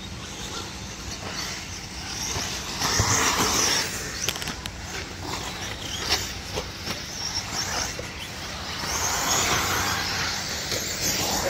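1/8-scale electric RC buggies racing on dirt: a steady hiss of motors and tyres that swells twice as cars pass close, with scattered sharp clicks and knocks.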